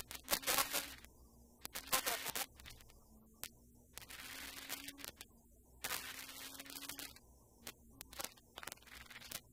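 Rally car under way, heard muffled from inside the cabin: the engine's faint drone climbs in pitch and drops back several times as the driver changes gear, with bursts of hiss and sharp clicks over it.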